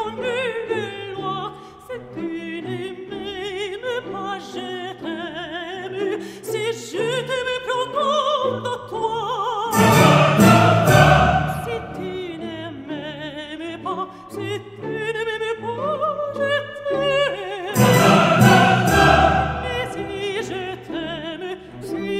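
Background music: a classical vocal piece with a singer's wavering vibrato over orchestra, rising to two louder, fuller passages, about ten seconds in and again about eighteen seconds in.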